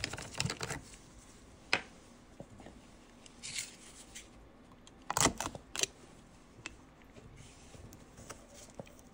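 Handling sounds from opening a plastic bottle of 3D-printing resin: a few light clicks as the screw cap is turned off, a short rustle around the foil seal, then two sharper clicks about five seconds in as a utility knife is brought to the seal.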